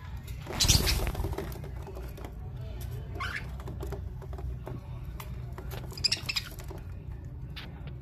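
Budgerigars chirping briefly a few times over the soft clicking and pattering of beaks pecking seed from a plate, with a loud rustle about a second in.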